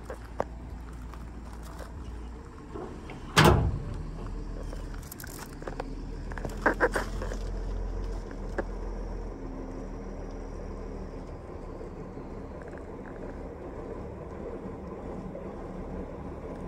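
Tailgate of a 2004 Dodge Dakota pickup slammed shut once, a single loud metal bang about three seconds in; a few lighter knocks and clicks follow a few seconds later.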